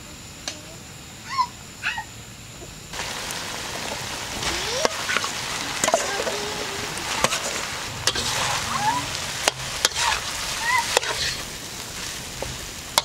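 Rice frying in a hot metal wok: a steady sizzle that starts about three seconds in, with a metal spatula clinking and scraping against the wok as the rice is tipped in and stirred. Short squeaks come through now and then.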